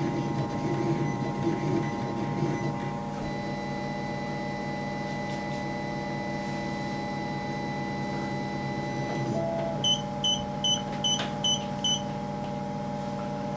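Up Mini 2 3D printer running: its motors whir over a steady fan hum as the final layer prints and the head moves clear. About ten seconds in come six short high beeps, roughly 0.4 s apart, the printer signalling that the print has finished.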